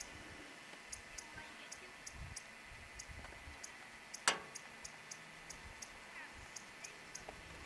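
Faint, regular high-pitched ticking, a few ticks a second, with one sharper click about four seconds in.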